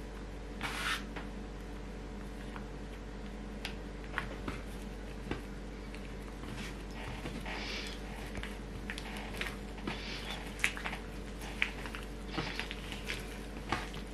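Bread dough being kneaded by hand on a wooden board while butter is worked into it: soft, sticky squishes with scattered light slaps and taps. A short scrape of a plastic dough scraper comes about a second in, over a steady low background hum.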